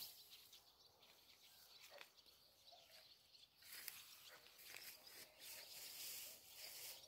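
Near silence: faint outdoor ambience over a mown field, with a faint high hiss that grows a little about halfway through.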